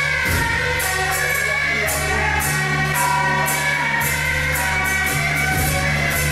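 Loud music with a steady beat of bright percussion strikes, about two or three a second, under held melody notes.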